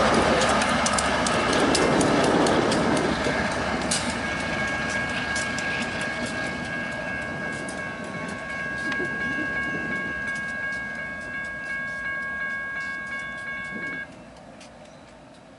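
BNSF diesel locomotives rumbling past with wheels clicking over rail joints. From about four seconds in the lead locomotive sounds its multi-chime air horn in one long steady blast for a grade crossing, which cuts off sharply near the end, leaving faint ticking.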